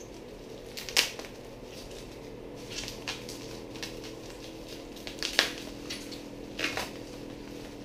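Clear plastic packaging crinkling and crackling in short bursts as it is handled and unwrapped, with sharper crackles about a second in and again around five and a half seconds. A steady low hum runs underneath.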